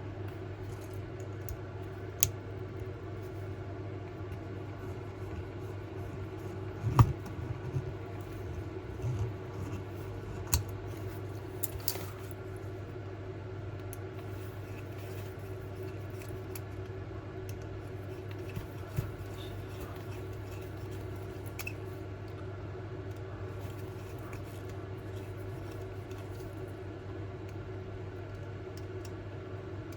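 Scattered small clicks and taps of fiddly handwork, fitting the pickups to a model locomotive's base plate, over a steady low hum.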